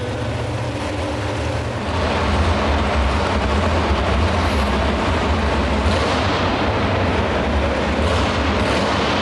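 A pulling truck's engine idling, then, about two seconds in, a louder supercharged pulling-truck engine running steadily at idle without revving.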